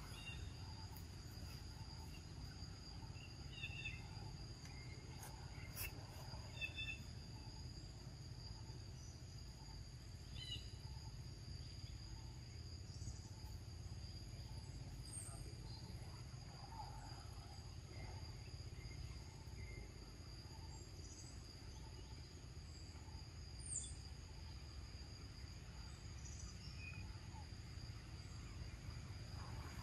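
Insects droning: several steady high-pitched tones held without a break, over a low steady rumble, with a few faint short chirps.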